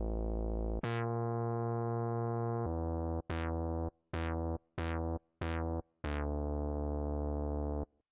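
Mini-G 3 software synthesizer playing its 'Bass 4' preset: a run of about seven bass notes, some held for a second or two and three short ones in the middle. Each note opens bright and quickly darkens to a buzzy sustained tone.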